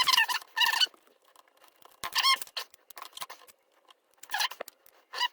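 A challenge lock being taken apart after picking: four short bursts of squeaking metal scraping, with small clicks between them.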